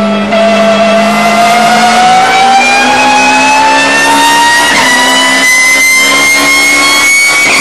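Race car engine heard from inside the cockpit, accelerating in one gear, its pitch climbing slowly and steadily with no gear change.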